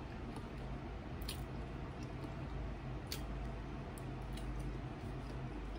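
Close-up chewing of sauce-covered fried chicken, with mouth sounds and a few sharp clicks, two of them standing out about a second in and about three seconds in, over a steady low hum.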